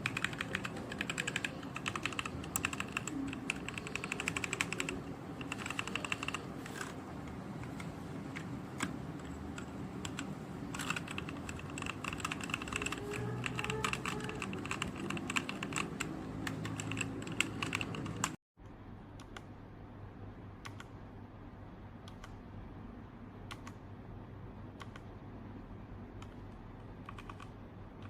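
Typing on a Redragon K617 Fizz 60% mechanical keyboard: a fast, dense run of key clicks. About two thirds of the way in the sound cuts out for a moment, then comes back as quieter, sparser keystrokes.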